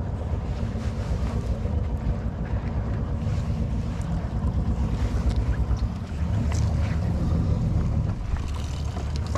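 Wind buffeting the microphone in an open boat: a steady, uneven low rumble, with a few faint light knocks.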